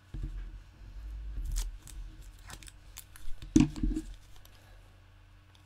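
Hands handling craft supplies on a desk: low bumps and rubbing, then a few short, crisp clicks and snips, loudest a little past the middle.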